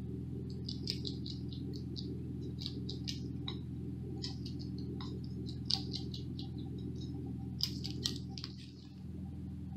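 Spotted skunk eating cat food from a plate: quick, irregular little clicks and smacks of chewing in small clusters, over a steady low hum.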